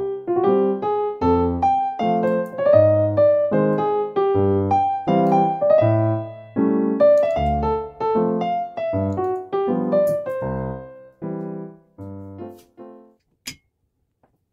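Background piano music, a steady run of single notes that fades out near the end, followed by one short sharp click.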